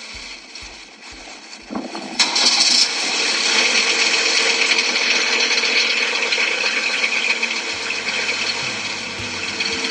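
A few soft clicks, then a loud, steady mechanical noise starts suddenly about two seconds in and runs on, with low rhythmic knocking coming in near the end.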